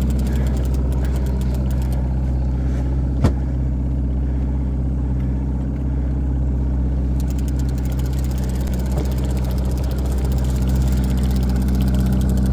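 Evinrude outboard motor running steadily at trolling speed, a constant low hum, with one sharp click about three seconds in.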